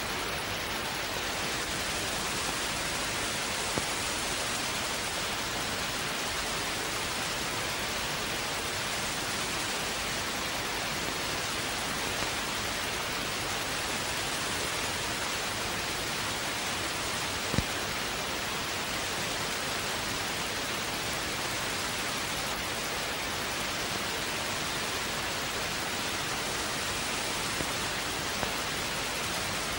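Steady, even hiss of static on a television broadcast's sound track while only a colour-bar test pattern is on air, with a single sharp click a little past halfway.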